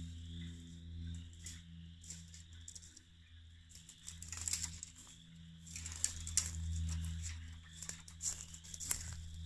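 Footsteps crunching through dry leaf litter and twigs, coming closer and getting denser from about four seconds in. A steady low hum runs underneath.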